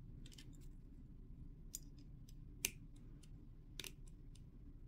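Needle-nose pliers clicking against the wire trundles and brass shroud of a clock's lantern pinion as the new trundles are pressed in: a string of small, sharp metal clicks, the loudest about two and a half seconds in, over a faint steady hum.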